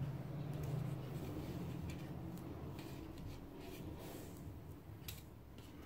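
Faint rustling and light ticks of small paper die cuts being handled and set down on a table, over a low steady hum.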